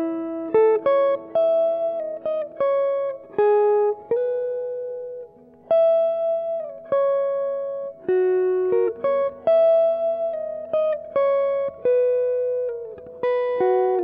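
Background music: a guitar playing a plucked melody one note at a time, each note ringing and fading before the next.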